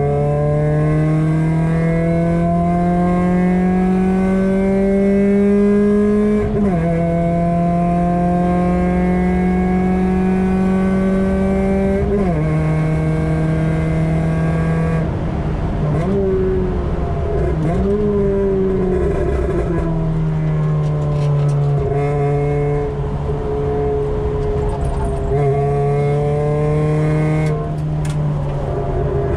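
Ford Puma 1.7 four-cylinder engine, swapped into a Mk5 Fiesta and breathing through a 4-2-1 manifold and decat exhaust, heard from inside the cabin under hard track driving. Its pitch climbs steadily and drops sharply at each gear change, about a fifth and again about two fifths of the way in. It dips and wavers through the middle, then pulls up again with two more drops near the end.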